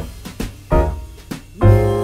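Recorded music playing from another room, with struck chords about once a second over a low bass.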